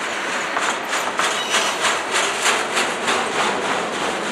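Freight railcars loaded with steel pipe rolling past, their wheels clacking over rail joints about three times a second through the middle, over a steady rolling rumble and hiss.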